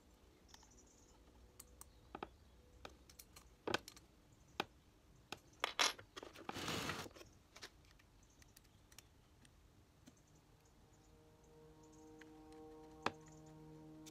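Scattered light metallic clicks and taps of small parts being fitted by hand on the cylinder head of a Honda XLR 125 engine, with a brief hiss-like rustle about halfway through. Faint background music comes in near the end.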